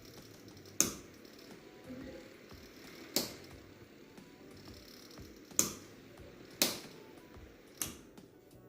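Five sharp clicks at uneven intervals, over a faint steady background.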